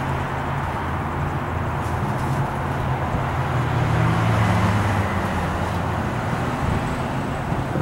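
Steady distant engine drone over outdoor background noise, with a low hum that swells about four to five seconds in.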